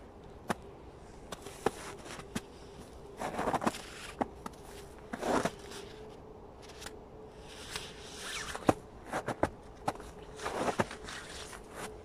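Slow footsteps crunching in snow, one crunch about every two seconds, with sharp clicks between the steps.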